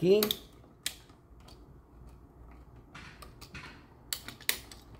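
Small sharp clicks and light scraping as the black wire is handled and fitted to a wall light switch's screw terminal. There is a single click about a second in and a cluster of clicks near the end.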